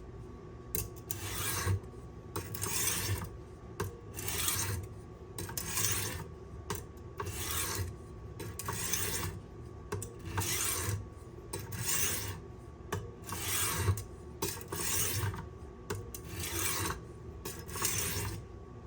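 Steel kitchen knife blade drawn across the coarse silicon carbide stone of a Smith Tri-Hone, a gritty scrape on each pass at about one stroke a second. These are coarse-grit passes grinding out the last of a chipped edge.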